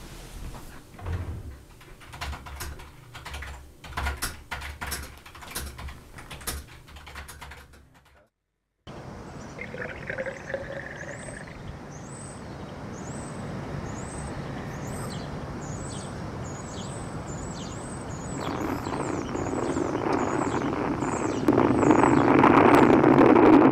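Rapid, irregular clicking like typing on a computer keyboard, then a brief drop-out. After it, birds chirp over and over above a steady rushing noise, which grows louder in two steps near the end as street traffic and wind come in.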